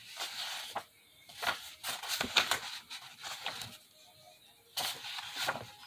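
Pages of a book being flipped through: a run of short, irregular paper rustles.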